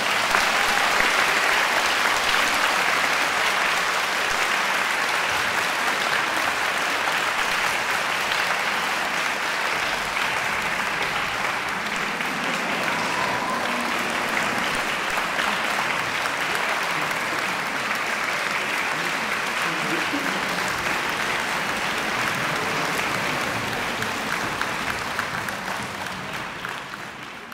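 Concert-hall audience applauding; the applause fades out near the end.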